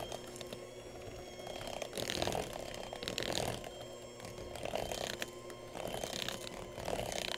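Electric hand mixer running steadily, its beaters churning gingerbread dough in a plastic bowl as flour is blended into creamed butter and sugar. The churning swells louder every second or so as the beaters are moved through the dough.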